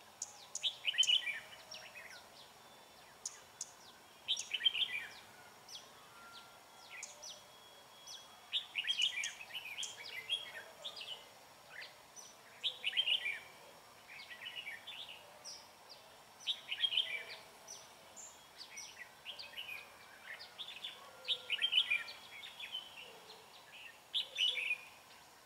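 Red-whiskered bulbuls singing: short, bright warbled phrases repeated every two seconds or so.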